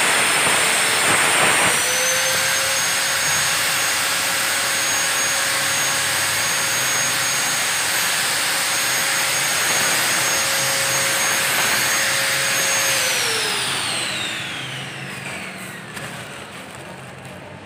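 A high-speed electric motor, as in a power tool, running with a steady high whine; it picks up speed about two seconds in, then is switched off near the end and winds down with a falling pitch.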